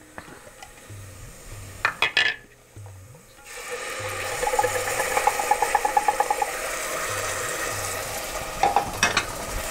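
A few short knocks of the blender jar against a steel saucepan, then, about three and a half seconds in, tomato, garlic and ginger paste hits hot mustard oil and starts sizzling steadily.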